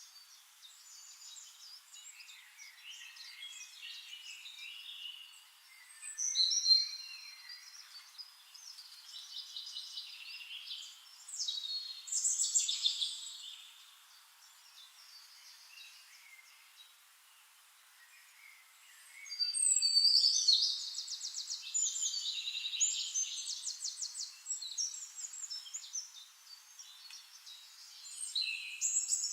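Songbirds singing: high-pitched chirps and rapid trills in bouts, the loudest and busiest stretch about twenty seconds in.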